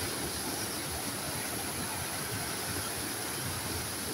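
River water pouring over a low weir: a steady, even rush of falling water.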